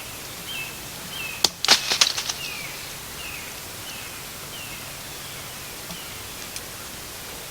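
A wild bird calls a short falling note over and over, about once every half second. About a second and a half in, a loud crackling rustle of several quick sharp strokes lasts under a second.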